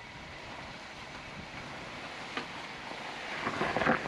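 Suzuki Jimny crawling slowly over rocks, its engine running with a steady noise of tyres on rock. Louder crunching and knocking near the end as the wheels come back down onto the ground.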